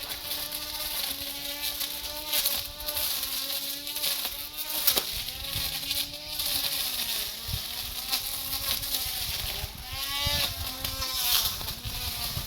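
Brush cutter engine running with a high buzz, its pitch rising and falling as the throttle and load change, with a quick rev near the end and a few brief clicks.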